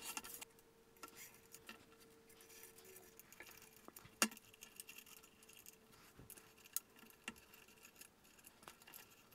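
Faint, scattered light clicks and ticks of a thin steel wire cable being handled around a 3D-printed plastic pulley, with a couple of sharper ticks about four and seven seconds in.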